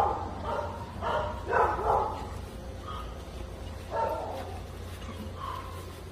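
A dog barking in short bursts: several barks in the first two seconds and one more about four seconds in.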